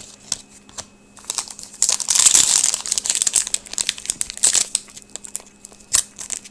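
Crinkling foil trading-card pack wrapper being torn and handled, loudest about two to three seconds in, with light rustles and clicks around it.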